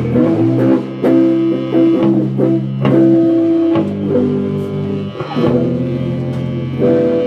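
Instrumental rock band music led by guitar with bass, held notes changing about once a second.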